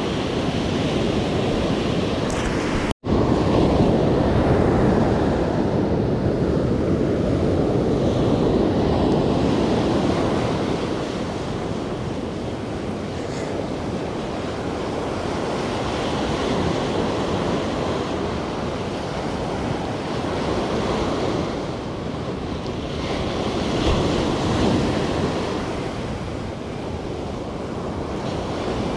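Ocean surf breaking and washing up the beach in slow swells. The sound cuts out for an instant about three seconds in.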